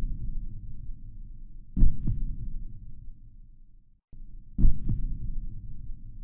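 Heartbeat sound effect: two deep lub-dub double thumps a few seconds apart over a steady low rumble, cutting out for a moment just before the second one.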